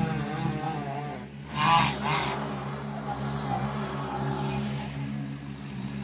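Gas chainsaw engine running, briefly revving up loud about a second and a half in, then settling back to a steady run.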